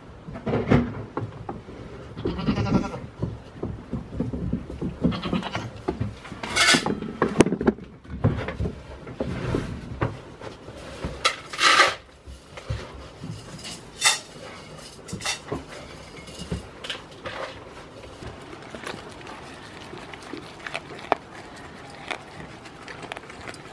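Goats bleating a few times, the loudest calls about seven and twelve seconds in, among short knocks and rustling as they move about on straw.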